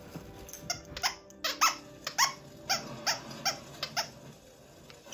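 Plush squeaky dog toy squeaked again and again as a Siberian Husky bites and chews it: a quick run of sharp squeaks, about two or three a second, each dropping in pitch, from about a second in until near the end.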